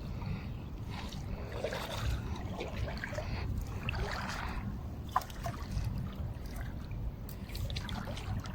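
Shallow water sloshing and trickling, under a steady low rumble, with a sharp click about five seconds in.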